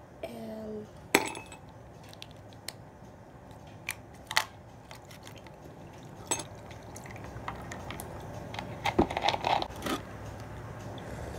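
Ice cubes dropped into a drinking glass, clinking sharply a few separate times, then rattling together in a quick run of clinks near the end with one dull knock of the glass on the table.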